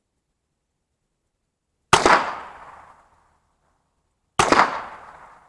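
Two .22 LR rifle shots about two and a half seconds apart, fired with high-velocity supersonic rounds at about 1,200 feet per second. Each is a sharp crack that trails off over about a second. It is not a really quiet round: the loudness comes from the bullet's sonic crack rather than the muzzle blast.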